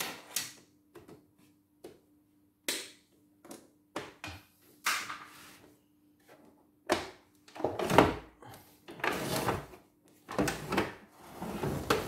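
Plastic clicks and knocks of a CNY embroidery machine being handled as its embroidery unit is detached. From about seven seconds in come heavier knocks and scraping as the machine body is shifted on the bench.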